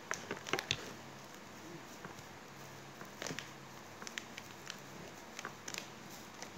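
Red foil tinsel garland crinkling and rustling as it is pressed and wrapped around a bucket by hand: a few short, crackly crinkles, grouped near the start and again from the middle on.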